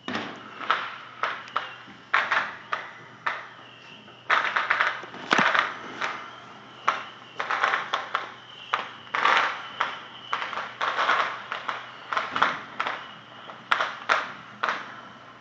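Fireworks going off in an irregular, rapid series of bangs and crackling bursts, one to two a second, thickening into dense crackling clusters about four, eight and eleven seconds in.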